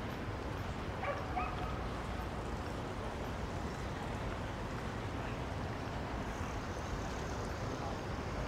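Steady outdoor city background noise, mostly low rumble, with a short high-pitched call about a second in.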